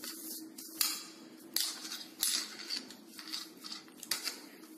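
Hand pressing and patting soft chapati-style dough in a bowl to spread a spoonful of oil over it, a string of soft pats and dabs every half second or so, over a faint steady hum.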